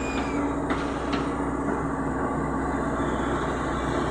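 Caterpillar hydraulic excavator's diesel engine running steadily under load as the boom lifts and swings a full bucket of soil, with two short knocks about a second in.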